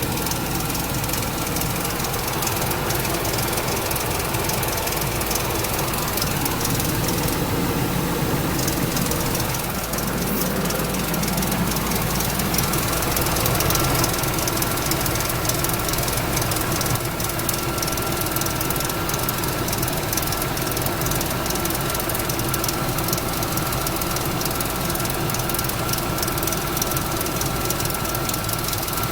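Ford 5.4L Modular V8 idling steadily while warming up, with a fast slappy ticking from the front of the engine and a thin steady whine alongside. The owner suspects worn timing chain tensioners (slack adjusters), though an accessory bearing could be the cause.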